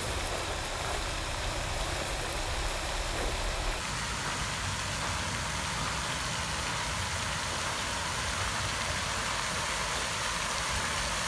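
Large fountain's many jets spraying and splashing into the basin, a steady rushing hiss with a low rumble underneath.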